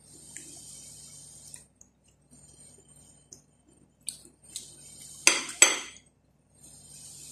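Metal fork clinking and scraping against a plate while cutting bread. There are a few light taps, then two sharp, louder clinks in quick succession a little past five seconds in.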